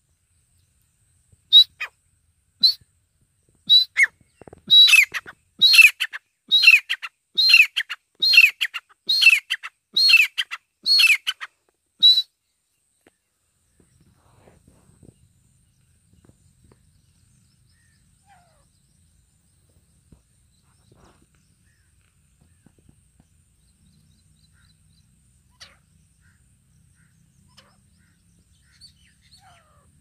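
Grey francolin (desi teetar) calling: a loud series of about a dozen repeated notes, each sliding down in pitch, coming closer together at first and then evenly spaced before stopping about twelve seconds in.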